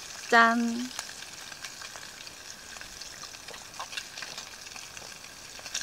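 Pork belly sizzling on a grill over a wood fire pit: a steady sizzle with scattered small pops.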